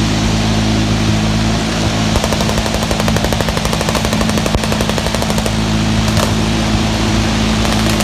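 Automatic machine-gun fire at a distance, with several guns going at once in a continuous rattle. A dense run of rapid shots stands out from about two seconds in to past the middle, over a steady low drone.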